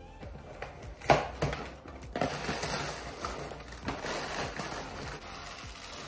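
A sharp knock about a second in, then steady crinkling and rustling of a Rice Krispies box's plastic liner, with the puffed rice cereal starting to pour into a pan of melted marshmallow near the end.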